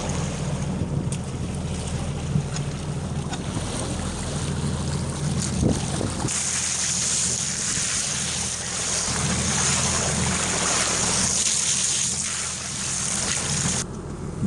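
Boat motor running with a steady low hum. About six seconds in, a loud steady hiss comes in on top and cuts off abruptly near the end.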